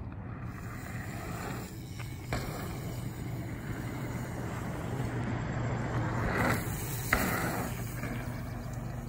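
Bicycle tyres rolling on a packed dirt track over a steady low rumble. The tyre noise swells about six and a half seconds in as the rider passes close by, followed by a sharp click.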